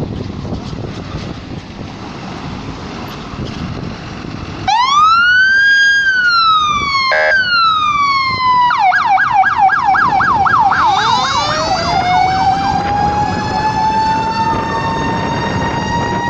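Fire engine's siren sounding as the truck leaves its station. After a few seconds of low rumble, it starts with a rising and falling wail, then switches to a fast warbling yelp, then to a rising wail that holds high.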